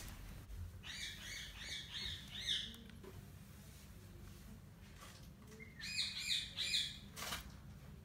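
Indian ringneck parakeet chirping in two quick runs of short repeated chirps, about six in the first few seconds and about four more after a pause of some three seconds, with one short tap near the end.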